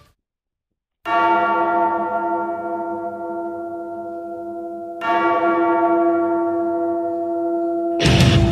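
A large tolling bell struck twice, about four seconds apart, each stroke ringing on and slowly dying away. Heavy rock music comes in near the end.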